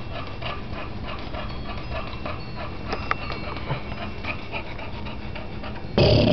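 Bulldog panting rapidly in an even rhythm, about four to five breaths a second. Near the end there is a sudden loud burst of noise.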